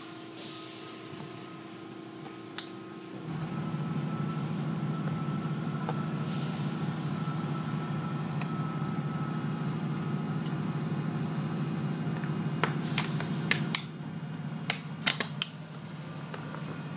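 Automatic car wash tunnel machinery running, heard through a viewing window: a steady motor hum, with a louder low rumble that starts about three seconds in and stops about fourteen seconds in. Several sharp clicks come near the end.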